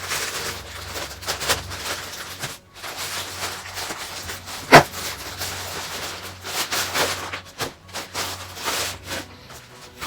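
Rustling and rubbing of mail packaging, envelopes being handled and opened, in irregular short bursts, with one sharp loud click about five seconds in.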